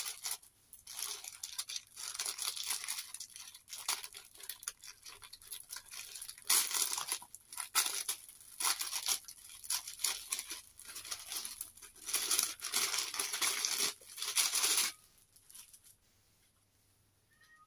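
Clear plastic packaging rustling and crinkling in irregular bursts as hands work it open and pull out the folded fabric inside, loudest in the second half and stopping a couple of seconds before the end.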